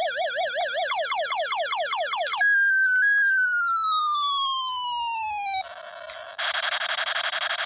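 Electronic sound effects from a battery-powered toy space gun. It plays a warbling siren, then a fast run of falling laser zaps about five a second, then one long slowly falling tone. About six seconds in, a harsh buzzing starts.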